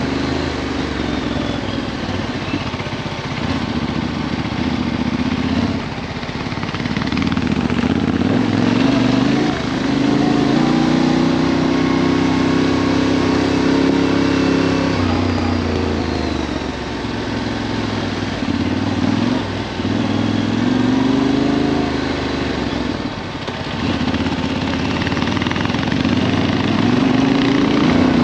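Adventure motorcycle engine heard on board while riding a dirt track, its note rising and falling several times with the throttle. A steady rush of wind noise on the microphone runs under it.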